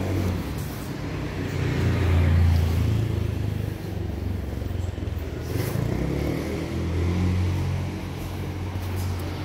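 Street traffic: a low, steady rumble of passing vehicles that swells about two seconds in and again around seven seconds.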